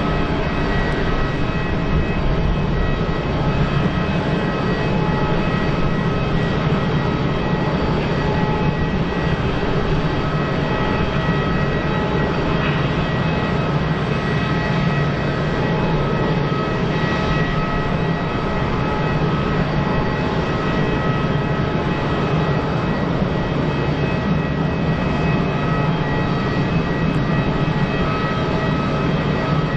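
Boeing 777-200's twin jet engines at low taxi power as the airliner taxis: a steady rumble with a constant high whine over it.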